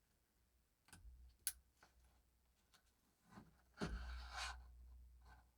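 Faint handling of a steel watch bracelet and clasp being fitted: two small sharp clicks, then a brief scraping rustle with a light knock about four seconds in.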